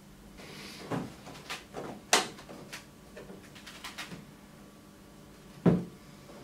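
Hands fitting and pressing pieces onto a painted aluminium diorama set: a series of light taps and clicks, a sharp click about two seconds in and a heavier knock near the end.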